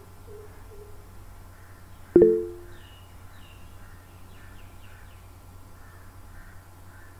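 Birds calling faintly in short repeated notes over a steady low electrical hum, with one sharp pop and a brief low ring about two seconds in.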